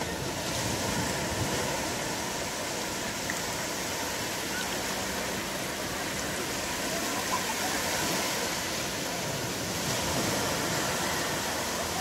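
Small waves breaking and washing up over a sandy beach in the shallows. A steady surf wash swells gently a few times.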